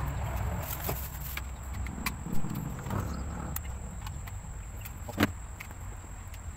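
Equipment being handled: a few knocks and two sharp clicks, about two and a half and five seconds in, over a steady low rumble.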